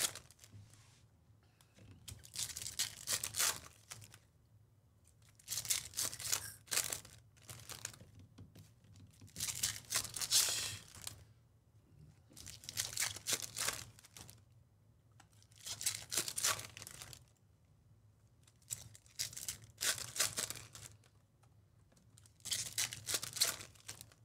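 Foil-wrapped Topps Chrome baseball card packs torn open by hand one after another, about eight packs, roughly one every three seconds. Between tears the wrappers and cards are handled.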